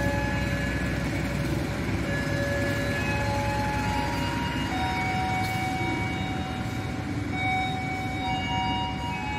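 Passenger train hauled by a CC 204 diesel-electric locomotive rolling through the station over a steady rumble, its wheels squealing in several thin, shifting pitches that come and go.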